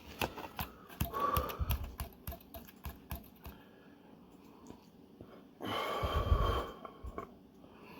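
Quick light clicks, like a utensil tapping a noodle cup, through the first few seconds, then a loud rough huff of breath about six seconds in, from a man breathing hard at the burn of ghost-pepper noodles.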